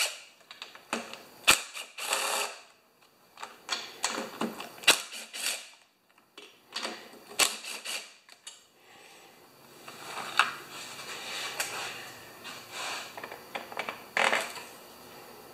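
Sharp clicks and knocks of a plastic engine air cleaner cover and tools being handled, with a cordless drill/driver running in short spells as the cover's screws are backed out. A steadier run of the drill comes about two-thirds of the way through.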